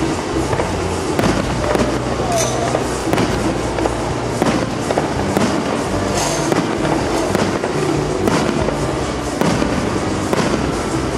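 Aerial firework shells bursting overhead in an irregular run of sharp bangs and crackles, with music playing under them.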